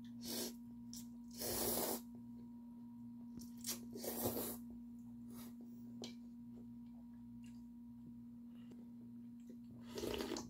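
Janchi-guksu, thin wheat noodles in broth, slurped from a bowl in a few short noisy slurps, the longest about a second and a half in and another around four seconds, then broth sipped from the tipped bowl near the end. A steady low hum runs underneath.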